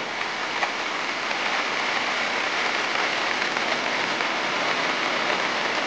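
Muddy floodwater rushing in a fast torrent over a road strewn with rocks and rubble after heavy rain, a steady hiss of moving water.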